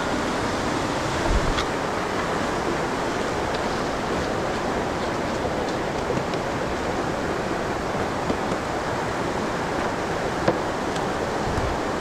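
Waterfall rushing steadily, with a low thump about a second and a half in and a brief click near the end.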